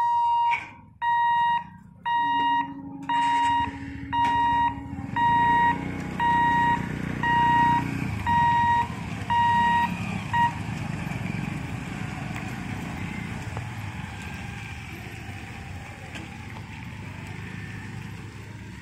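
Level-crossing warning buzzer beeping about once a second, eleven times, while the boom barrier lifts. It stops about ten seconds in. Under and after the beeps, motorcycle engines run steadily as road traffic moves off across the tracks.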